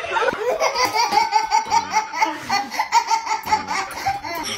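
A baby laughing hard in a quick run of short, repeated high-pitched bursts of laughter, easing off near the end.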